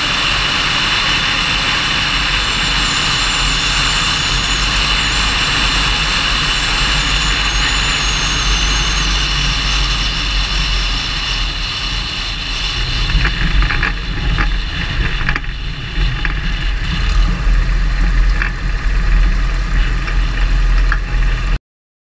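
Pitts biplane's engine running with a strong rush of air, heard from an onboard camera as the aircraft comes down to land on a grass airstrip, a high whine slowly falling in pitch in the first half. From about 13 seconds in the sound turns rougher, with scattered knocks and rattles as the wheels roll over the grass, then it cuts off suddenly near the end.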